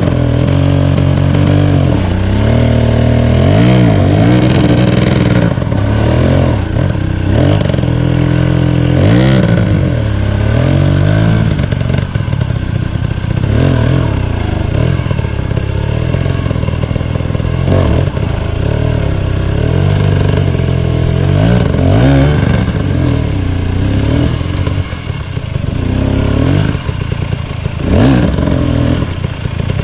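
Two-stroke KTM 250 EXC enduro bike revving in repeated bursts, its pitch rising and falling again and again as it claws up a steep rocky climb. The tyres and frame clatter and scrape on the rock. The engine fades somewhat as the bike climbs away, then gives one more hard rev near the end.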